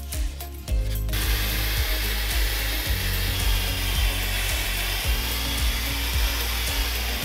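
Air-powered random orbital sander running on a softwood board: a steady air hiss with a faint wavering high whine that starts about a second in, after a few light clicks. Background music with a pulsing beat plays underneath.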